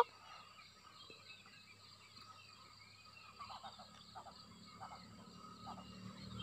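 Quiet outdoor forest-edge ambience with scattered faint small chirps from wildlife; a low hum builds slightly near the end.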